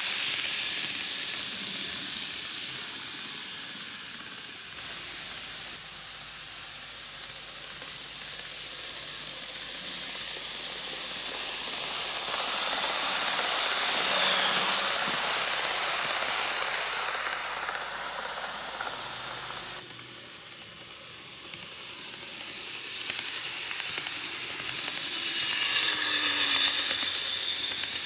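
KATO N-gauge E4 series 'Max Toki' model train running on TOMIX superelevated curved track: a steady hissing clatter of small wheels on the rails. It grows louder as the train comes close and fades as it draws away, swelling twice.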